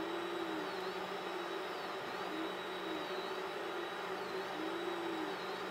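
Geeetech Mizar S 3D printer running a fast print: the stepper motors whine in a pitch that rises and falls a little more than once a second as the print head circles a round wall, over a steady hiss. It is extruding plastic as fast as it can in a material-throughput test.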